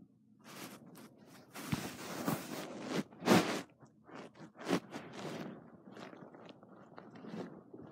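German Shepherd chewing and gnawing on a chew bone, giving irregular crunching and scraping bursts, the loudest about three seconds in.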